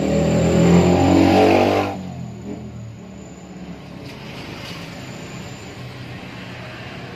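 A motor vehicle's engine revving, rising in pitch, then dropping away about two seconds in, leaving a quieter steady background hum.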